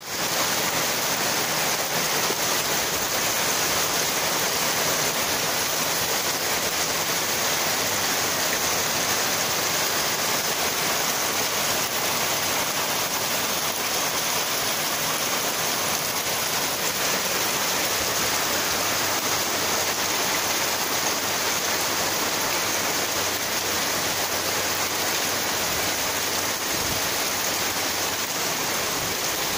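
Heavy rain falling steadily on roofs, cars and wet pavement, an even hiss with no let-up.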